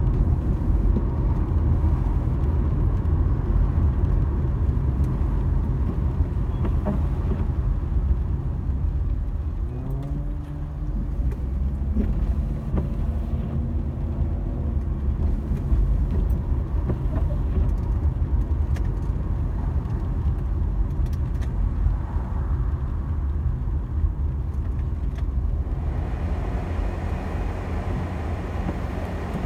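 A car's engine and tyre noise while driving: a steady low rumble, with a short rising engine note about ten seconds in.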